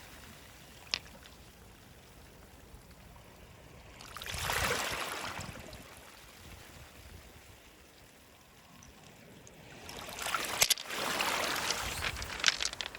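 Small waves washing in over a pebble beach: a swell of rushing water about four seconds in and a longer, louder one from about ten seconds, with pebbles clicking against each other.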